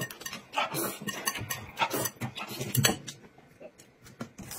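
Noisy eating: irregular wet chewing, slurping and smacking sounds, with a few brief low grunts.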